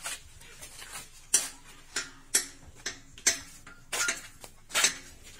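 Irregular sharp metallic clinks, about six in a few seconds: a spanner knocking against the bolts and steel frame of a manual paving-block press as the mould-box bolts are undone.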